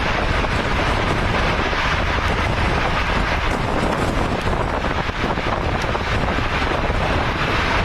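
Steady, loud rushing of storm wind, with gusts buffeting the microphone into an unsteady low rumble.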